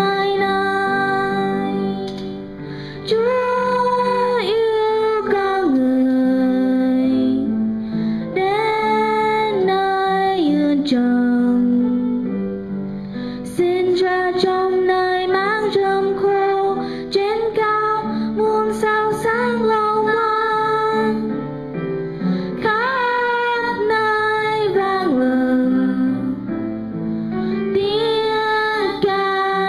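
A woman singing a Vietnamese Christmas song with instrumental accompaniment, in phrases of long held notes with short breaks between them.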